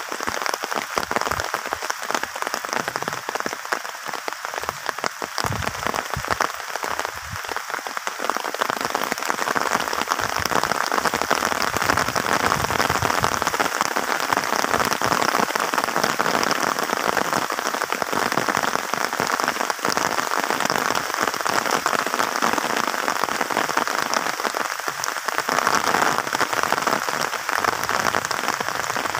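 Rain falling steadily, a dense even hiss that grows a little louder about eight seconds in.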